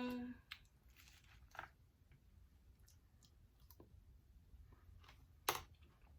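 Faint mouth sounds of someone eating: a brief hummed "mmm" at the start, then soft chewing clicks, with one sharper click about five and a half seconds in.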